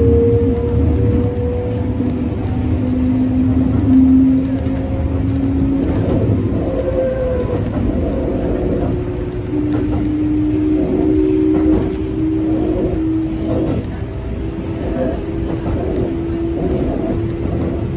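Kintetsu electric train running, heard on board: a steady low rumble with a traction-motor whine that shifts in pitch, stepping slowly upward over the second half.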